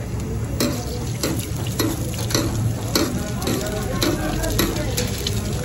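Oil sizzling under a lachha paratha frying on a hot flat iron griddle, with a metal ladle and tongs clicking and scraping against the griddle a few times each second over a steady low hum.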